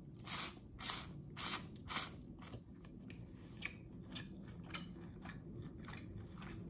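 Spaghetti noodles slurped into the mouth in four sharp, hissing sucks within the first two seconds, then softer wet mouth clicks and smacks as the last strands are drawn in and chewed.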